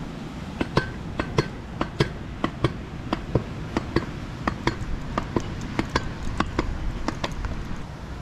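Vurtego V3 pogo stick bouncing on pavement: sharp metallic clacks at each landing, often in close pairs, in a steady rhythm of roughly two bounces a second, over a low rumble of wind.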